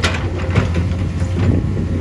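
Heavy diesel construction machine running with a steady low rumble, with several sharp knocks and scrapes over it, about one every half second.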